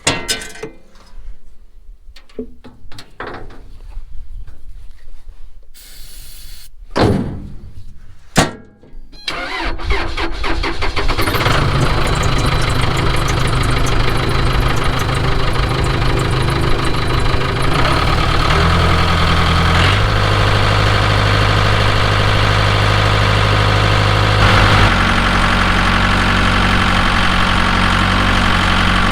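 Case 580 Super K backhoe's diesel engine cranking and catching on a cold-weather start aided by a shot of starting fluid, after a few seconds of short knocks and a hiss. It then settles into steady running, with the engine speed stepping up and down a couple of times.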